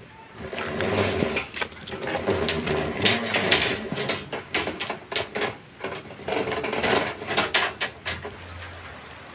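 A run of irregular knocks, scrapes and clatter, in two busy stretches with a short lull between them.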